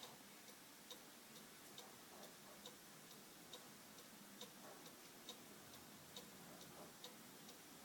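Cuckoo clock ticking faintly and evenly, a little over two ticks a second.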